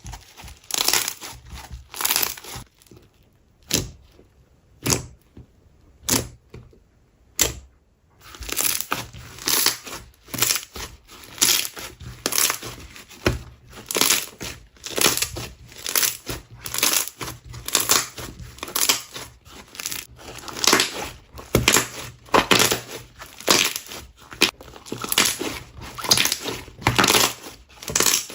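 Clear slime packed with foam beads being squeezed and stretched by hand, giving repeated crunchy crackles about one to two a second. A quieter stretch a few seconds in holds only a few single sharp pops before the steady crunching returns.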